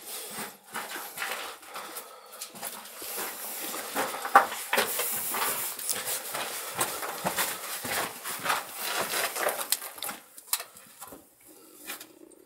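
Scuffing and scraping of a person crawling over rock and loose stones through a low cave passage: irregular rustles and scrapes of clothing, hands and knees on stone, busiest in the middle and dying down near the end.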